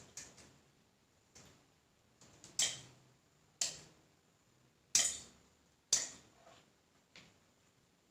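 Scissors snipping through sawi langit (Cyanthillium cinereum) roots: a string of about seven sharp single snips roughly a second apart, the loudest in the middle.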